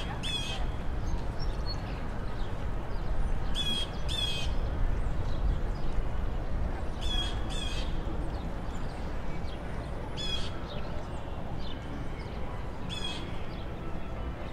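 A bird giving short, harsh calls five times, the first three times as a quick double call, over a steady low rumble of city background noise.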